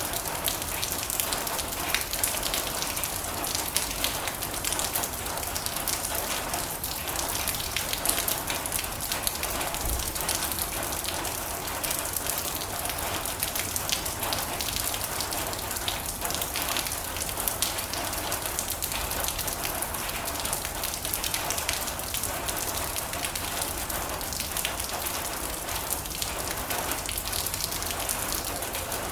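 Steady heavy rain pattering on a metal roof, a dense hiss full of countless small sharp drop impacts.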